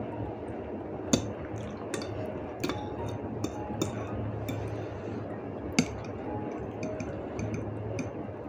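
Metal fork clinking and scraping against a plate while twirling noodles: a series of irregular sharp clinks, the loudest about a second in and again near six seconds, over a steady low hum.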